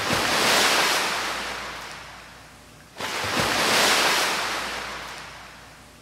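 Two ocean-wave sound effects, one at the start and another about three seconds in, each surging up quickly and then washing away over about three seconds.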